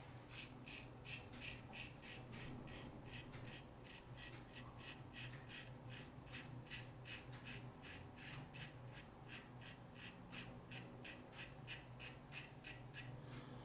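Razor scraping through lathered stubble in short, quick strokes, about three a second.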